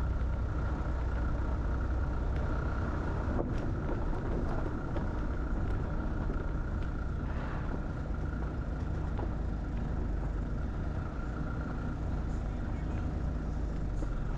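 Steady engine and road rumble of a vehicle driving slowly over a rough road, with a few faint clicks and rattles.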